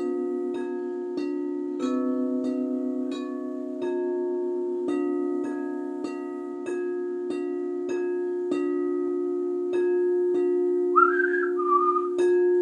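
Frosted quartz crystal singing bowls struck with padded mallets in a steady, even beat of about three strokes every two seconds, each note ringing on so the tones overlap into a held chord as a melody is picked out. About eleven seconds in, a whistled tune joins the bowls.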